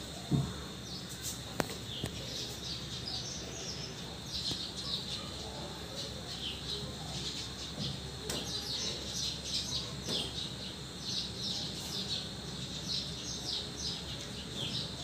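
Small birds chirping in quick repeated clusters of short high notes over a faint steady hum. A soft thump comes just after the start and a sharp click about a second and a half in.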